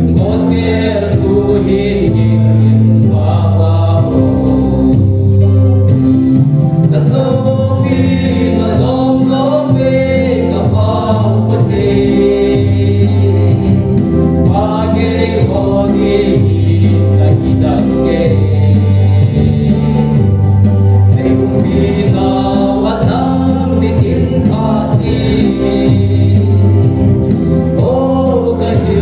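Gospel song: a group of voices singing together over instrumental backing with a steady beat and a bass line that moves from note to note.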